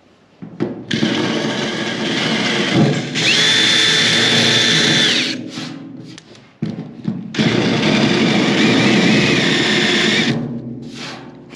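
Power drill with a step bit boring through the aluminium bottom of a fuel tank, opening out corrosion pinholes for welding. Two runs, the first about four seconds long with a steady high whine through its middle, the second about three seconds after a short pause.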